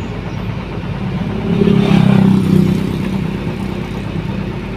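Road vehicle engine running, swelling louder about one and a half seconds in and easing off again about a second later.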